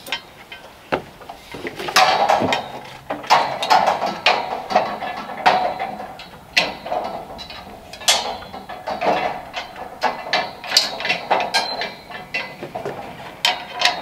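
Steel forklift safety cage being put together: irregular metal clanks, knocks and rattles as the gate and frame parts are handled and pins are fitted. Some clanks ring briefly.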